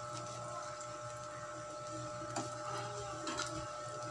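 Potato-and-egg omelette shallow-frying in hot oil: a steady sizzle, with a couple of light clicks of a metal spoon and fork against the pan about halfway through and near the end.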